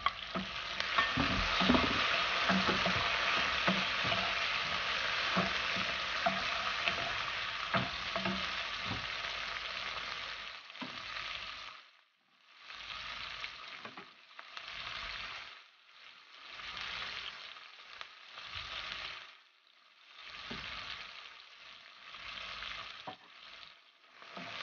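Tomato wedges tipped into a hot frying pan of onions and garlic, setting off a loud sizzle with a few knocks near the start. From about halfway the sizzling comes and goes in swells as the vegetables are stirred with a wooden spoon.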